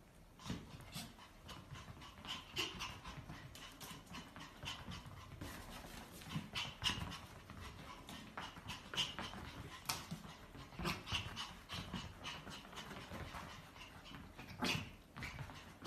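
Two small dogs, a Pomeranian and a grey terrier, at play: panting and short high whimpers, with quick clicks and scuffles throughout.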